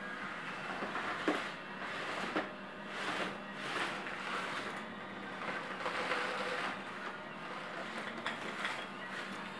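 Small six-wheeled remote-controlled prototype's electric drive motors whirring in short, irregular spurts as it drives over carpet, with two sharp knocks about a second and two and a half seconds in.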